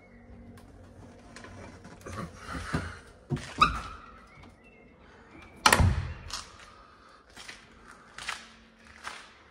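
Knocks and thuds of a person climbing down out of a truck cab, with one heavy thud a little past the middle, then a few gritty footsteps on a debris-strewn concrete floor.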